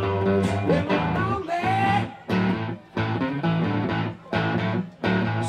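Live electric blues band playing, led by guitar. In the second half the band breaks off briefly several times between accented hits.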